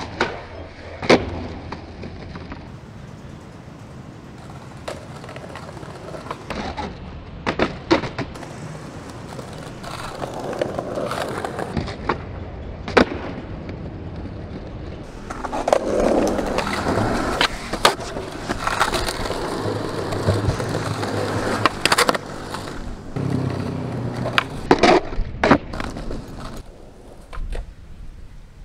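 Skateboard on concrete: urethane wheels rolling, with sharp cracks of the deck popping and landing scattered through. The rolling is loudest in the middle of the stretch.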